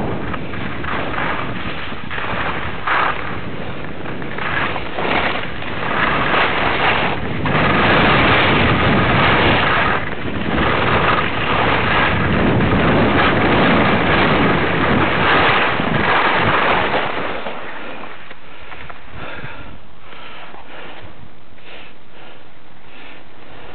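Wind rushing over the microphone while skiing downhill, with skis hissing and scraping over the snow in repeated turns. It grows louder through the middle, then drops to a quieter, steady hiss about three-quarters of the way through.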